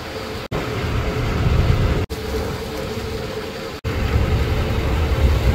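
Fishing boat's engine running with a steady hum, under a heavy low rumble of wind and sea that swells and fades. The sound drops out for an instant three times where short clips are cut together.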